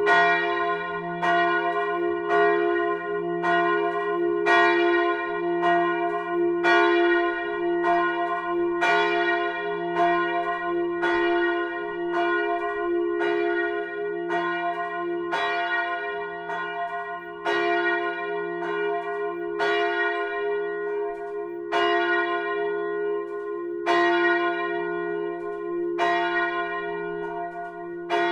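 A single swinging church bell, the 1948 Petit & Fritsen bell tuned to F1, rung on its own. Its clapper strikes about once a second, and each stroke hums on into the next.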